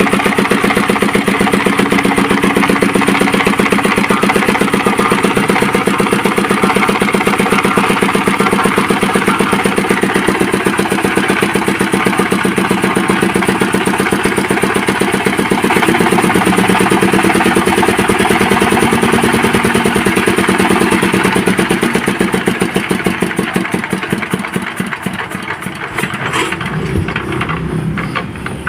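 Overhauled 24 hp engine driving a 10 kW single-phase generator, running steadily with an even firing beat. In the last several seconds it slows and quietens, its beat growing slower and uneven as it winds down.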